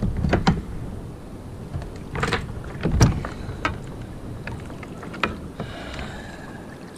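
Knocks and thumps of a lingcod being handled and laid onto a measuring board on a kayak: about half a dozen sharp hits, with a short scrape near the end, over a steady low rumble.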